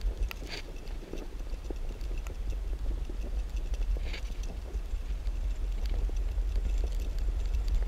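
Bicycle rolling along a paved path: a steady low wind rumble on the microphone, with tyre noise and scattered small clicks and rattles from the bike.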